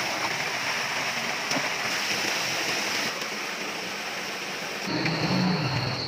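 Steady rush of running water. About five seconds in it gives way to a steady high tone with lower pitched sounds.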